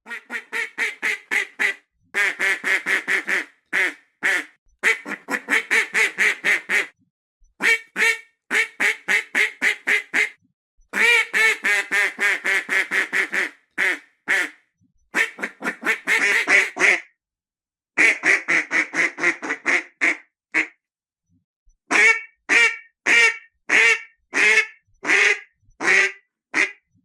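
Ducks quacking in quick series of short, nasal calls, several a second, in bursts of a few seconds with short pauses between.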